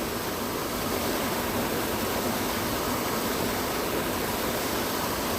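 Steady rush of a waterfall: an even wash of water noise with no breaks.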